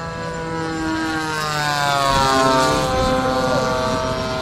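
Twin 80mm electric ducted fans of a Freewing A-10 Thunderbolt II foam RC jet whining as it flies past. The sound grows louder to a peak about halfway through, and the pitch drops as the jet goes by.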